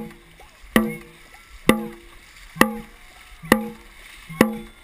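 Dragon boat drum beaten in a steady rhythm, about one beat a second, five strikes that each ring and die away, setting the paddlers' stroke. Paddles churn and splash water underneath.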